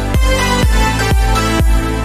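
Electronic intro music: a deep kick drum about twice a second under sustained synth chords.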